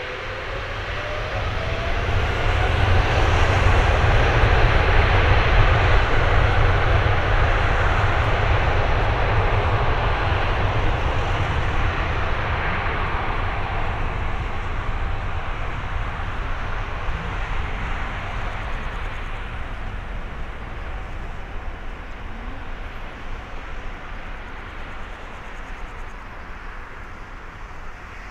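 Boeing 777-300ER's two GE90-115B turbofans spooling up to takeoff thrust, a whine rising in pitch over the first few seconds under a heavy rumble. The sound peaks about five seconds in, then slowly fades as the jet accelerates away down the runway.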